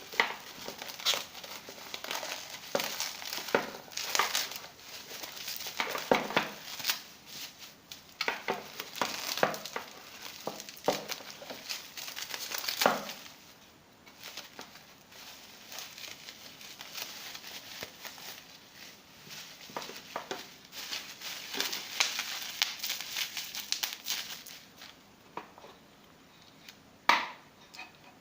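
Packaging being handled and unwrapped by hand, crinkling and crackling in quick irregular bursts, with a quieter stretch near the middle.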